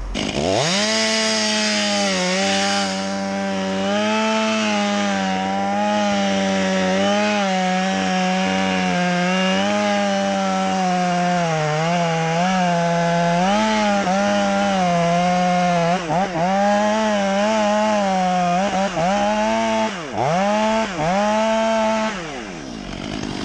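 Chainsaw revving up and running flat out through a cut. Its pitch dips several times under load in the last few seconds, and it winds down near the end.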